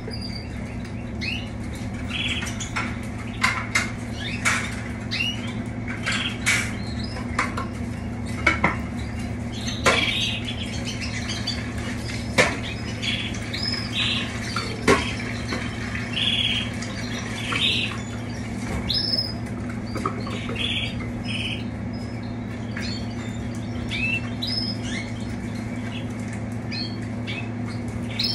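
Canaries in wire cages giving many short chirps and calls, with scattered sharp clicks and knocks, over a steady low hum.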